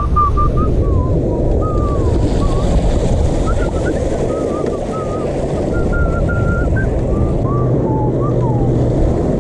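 Bicycle tyres rolling through shallow floodwater, a steady splashing and rushing mixed with wind on the microphone. A thin, wavering squeal runs over it.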